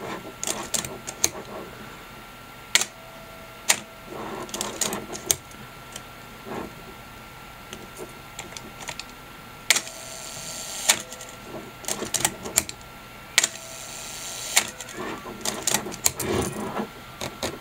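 Canon TX 35mm SLR's mechanical shutter fired three times at a slow speed, each an opening click and a closing click about a second apart with a faint hum between. After each release the film advance lever is wound with a quick run of ratcheting clicks.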